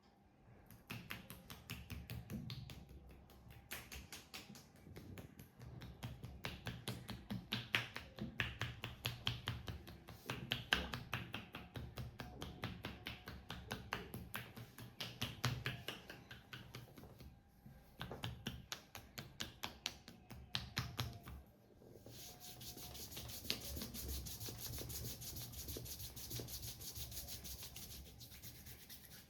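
Back massage: rapid percussive strokes on skin, several a second. After a short pause, a steady rubbing hiss fills the last several seconds.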